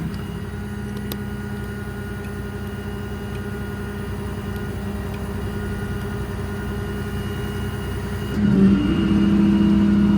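Running Cummins 6.7 diesel service truck drones steadily under hydraulic load. About eight seconds in, the sound gets louder and shifts in pitch as the hydraulic air compressor is switched on from the remote.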